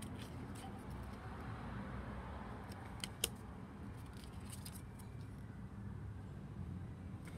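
Tarot cards being handled in their metal tin: faint clicks and taps, with one sharper click about three seconds in, over a steady low background rumble.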